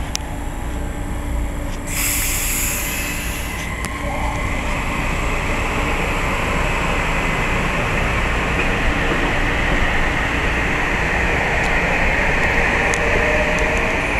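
Metro-North electric commuter train moving past along the platform track, with steady wheel-and-rail rumble and hiss. A faint rising whine enters near the end.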